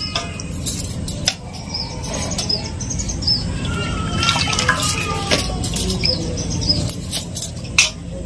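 Hand swishing and splashing water in a steel plate while rinsing sliced onions, with frequent sharp clinks of bangles and fingers against the steel.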